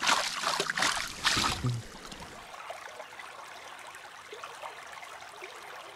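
Brook trout thrashing in a rubber-mesh landing net, splashing water in quick bursts for about the first second and a half, then a steady faint sound of stream water flowing.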